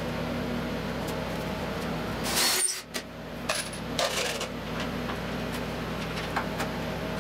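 Steel screws and washers clinking and rustling in a plastic parts bag as a hand picks through it: scattered small clicks, with two louder bursts of jingling about two and a half and four seconds in, over a steady low hum.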